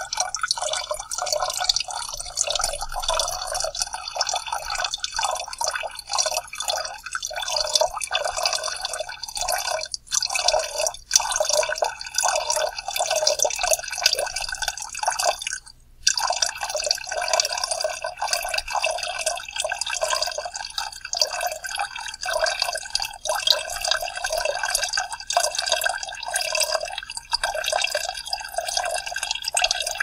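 A steady stream of urine splashing, broken by brief pauses about a third of the way in and again around the middle.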